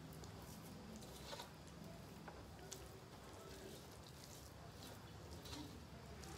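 Faint soft squishes and a few light clicks of fingers mixing rice and curry on metal plates, over a low steady hum.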